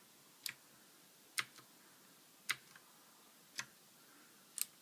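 Cherry MX Blue mechanical keyboard switches clicking as single keys are pressed one at a time, five clicks about a second apart.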